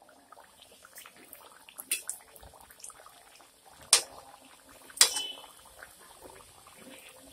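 Kachoris sizzling as they deep-fry in hot oil in a steel kadhai, with a few sharp metal clinks of a perforated slotted spoon against the pan, the loudest about four and five seconds in.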